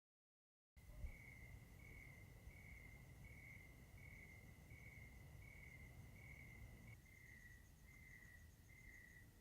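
Faint crickets chirping in a steady, even rhythm, about one and a half chirps a second, over a low hum. It starts abruptly out of dead silence just under a second in.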